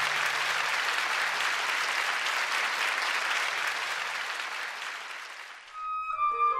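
Audience applauding, the applause dying away after about five and a half seconds. Soft music with held tones begins near the end.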